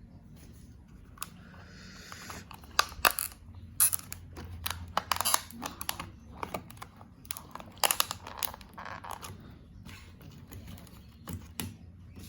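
Plastic packaging being handled: a run of sharp clicks, taps and crinkling, loudest in clusters about 3, 5 and 8 seconds in.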